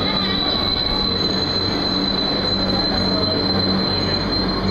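Underground train braking into a station platform: the rumble of the wheels under a steady high-pitched squeal. The squeal stops near the end as the train comes to a halt.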